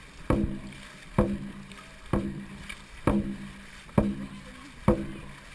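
Dragon boat drum struck in a steady beat, about one hit every second, six hits in all, each with a short booming ring, marking the paddlers' stroke rhythm during the race.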